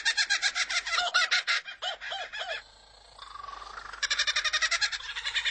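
Kookaburra-style laughing call: rapid chuckling notes, about eight a second, that break off about two and a half seconds in. A short rising whistle follows, then the rapid chuckling starts again about four seconds in.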